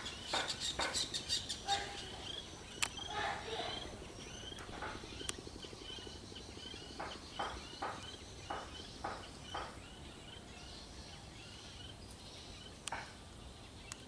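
Kingfisher calling: series of short, harsh notes, rapid at first, then again in a slower run midway, with a pause before a few more near the end. A thinner chirping note repeats more quietly behind them, and there are a few sharp clicks.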